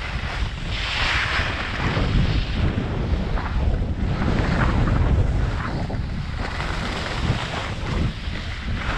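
Wind buffeting an action camera's microphone during a fast ski descent, a heavy low rumble, with the hiss of skis sliding and carving on packed snow swelling and fading through the turns, loudest about a second in.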